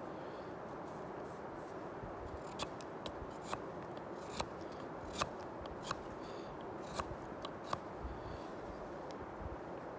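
A Bark River Bushcraft Scout knife shaving wood off a stick in short cuts, about one sharp stroke a second for several seconds, as two sides of the stick are flattened.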